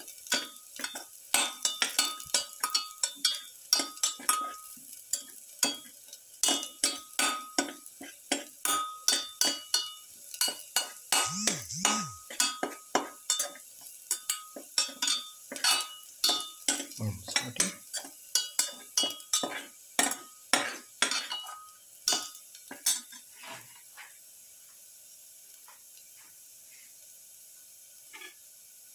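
Perforated metal spatula scraping and clinking against a stainless steel pan in quick repeated strokes while garlic cloves and sliced shallots are sautéed in oil, with a faint sizzle underneath. The stirring stops about five seconds before the end, leaving only the faint steady sizzle.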